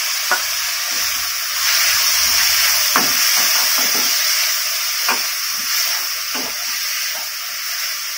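Chopped pineapple sizzling as it is sautéed in hot oil in a kadai, stirred with a wooden spatula that knocks and scrapes against the pan now and then. The sizzle grows louder about a second and a half in.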